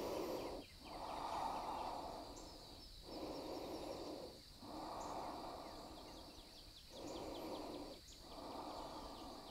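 A person breathing audibly in and out through the nose, in about six even strokes of one to two seconds each with short pauses between.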